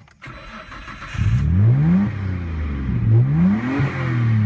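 Nissan Skyline GT-R (R32) RB26 twin-turbo straight-six accelerating hard through the gears. It gets loud about a second in, rises in pitch, drops at an upshift about two seconds in, then rises again.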